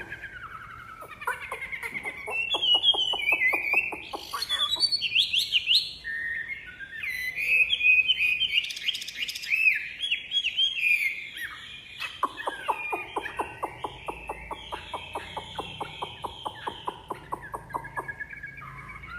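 Wambi songbird singing loudly: a varied, rising and falling warble of whistled phrases mixed with runs of fast, repeated rattling notes, one short run near the start and a long one through the second half.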